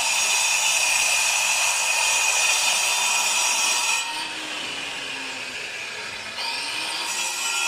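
Angle grinder with a cutting disc cutting a chase into a concrete block wall, a loud steady whine over a grinding noise. It eases off about four seconds in and bites in again near the end.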